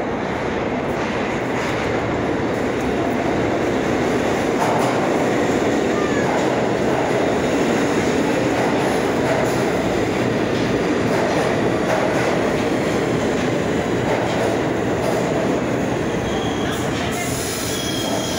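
New York City subway train running along the platform: a loud, steady rumble of steel wheels on the rails, with high squealing tones near the end.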